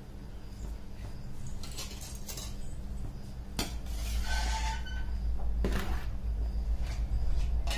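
Large aluminium pot of basmati rice at a rolling boil on a gas stove, with a steady low rumble. A spoon stirs the rice and knocks against the pot a few times.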